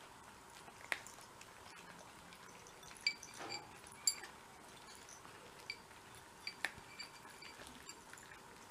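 Cats eating from small ceramic bowls: faint, scattered clicks and light clinks of teeth and food against the bowls, a second or so apart, over a quiet background.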